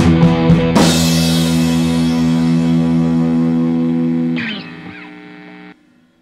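Rock music with distorted electric guitar and drums ending. A final chord is struck about a second in and rings out. It fades down after about four seconds and then cuts off.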